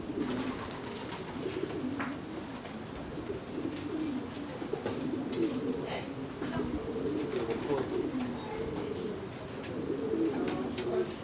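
Racing pigeons cooing, many low coos overlapping without a break.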